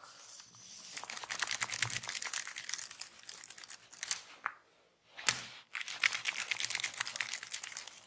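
Dense crackling of fingers scratching and rubbing through hair in a barber's head massage, in two runs of about three and two seconds, with two sharp snaps between them, the second the loudest.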